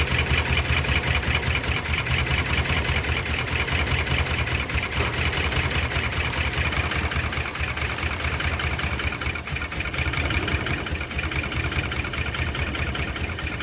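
2010 Dodge Ram's 5.7 Hemi V8 idling rough and unevenly. The cause is a pushrod not seated properly, which leaves one rocker arm and its valve not moving.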